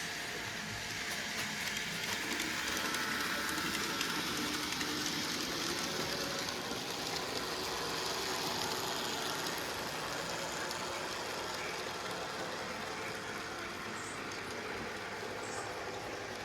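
N gauge model train running on the layout: a steady rolling rush of small wheels on track and motor hum, growing a little louder for several seconds as it passes closer, then easing off.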